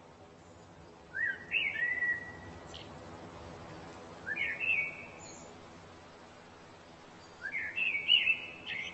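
A songbird singing three short phrases of quick rising and falling notes, a few seconds apart, over a faint steady background hiss.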